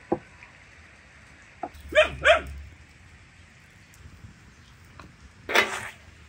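A dog barks twice in quick succession, each bark falling in pitch. A short, harsher noise follows about five and a half seconds in.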